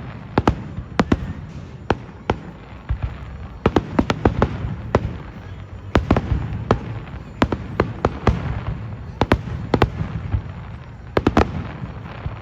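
Fireworks display: a rapid, irregular run of sharp bangs and crackles, several a second at times, over a steady low rumble.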